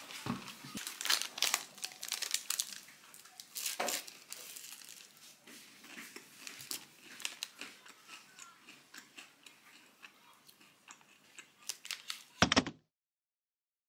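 Paper food wrapper crinkling and rustling as it is handled, in irregular clicks and crackles. There is a louder rustle about twelve seconds in, then the sound cuts off suddenly.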